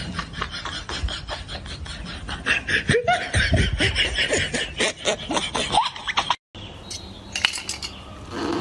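Laughter, a quick, even ha-ha rhythm with wavering pitch, breaking off suddenly about six seconds in; after that a quieter stretch with a couple of sharp clicks.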